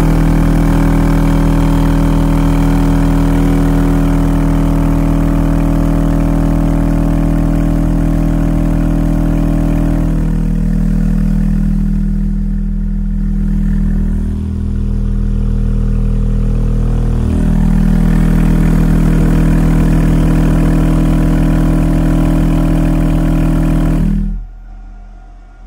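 SLAPZ Audio Oblivion 12-inch dual-voice-coil subwoofer, unboxed in free air, playing a 40 Hz test tone at high power (around 1,000 to 2,200 watts RMS as the gain is raised): a loud, steady low drone with a buzzy edge, cutting off suddenly near the end.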